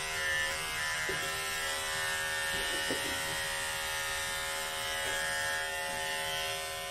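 Cordless electric dog clippers running with a steady buzz as they shave through matted fur.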